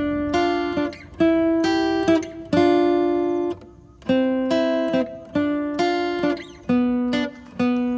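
Background music: an acoustic guitar plucking a slow melody, one or two notes a second, each note ringing on and fading.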